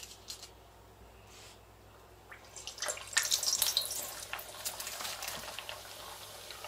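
A pastry hand pie going into hot oil in a cast-iron skillet: the oil starts sizzling and bubbling about three seconds in, loudest at first, then settles into a steady crackling fry.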